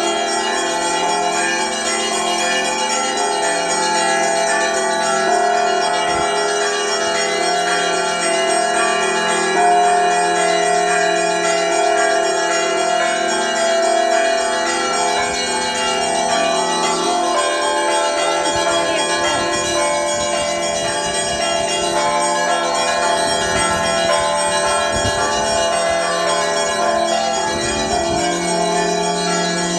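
Russian Orthodox monastery bells ringing together in a continuous peal. Many bells of different pitches sound at once, with a steady deep bell under higher ones struck again and again.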